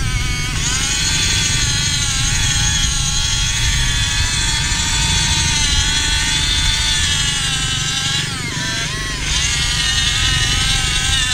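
Huina 1551 remote-control excavator's small electric drive motors whining as it crawls on its tracks through mud. The whine wavers in pitch and dips briefly about eight seconds in.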